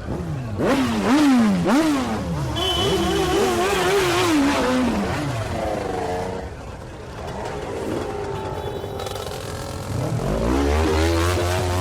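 Motorcycle engine accelerating hard through the gears, its pitch climbing and dropping back at each quick upshift, then holding high before falling away. After a quieter stretch the engine revs up and drops again near the end.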